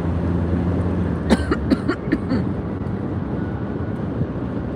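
Steady engine hum and road noise inside a car cruising on an expressway, with a few short, sharp sounds about a second and a half in.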